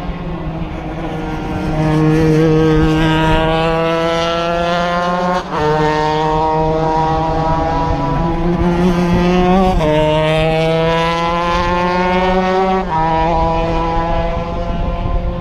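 Stock moto Honda two-stroke shifter kart engine under hard acceleration, its pitch climbing steadily and broken three times by quick gear changes.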